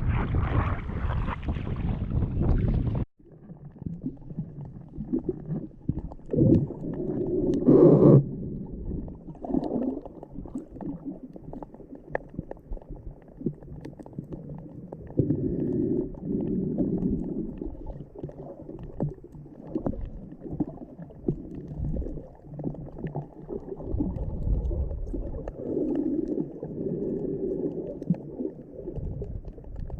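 Seawater muffled through a GoPro's waterproof housing: wind and surf noise cut off abruptly about three seconds in as the camera goes under, giving way to dull gurgling, sloshing and knocks, with a louder gurgle near eight seconds.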